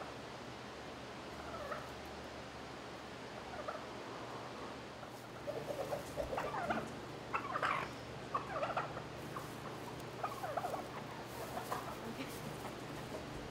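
Domestic hens clucking: a run of short calls, busiest in the middle of the stretch, over a steady low hum.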